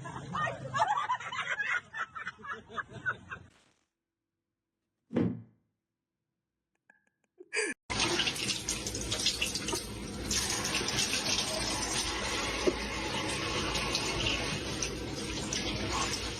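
A few seconds of voices or laughter, then a gap, and from about eight seconds in a steady rush of running water, like a tap running.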